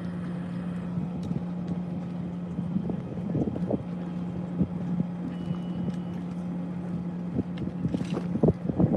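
A steady low engine-like hum with wind noise on the microphone, and a few brief knocks and crackles, a cluster of them near the end.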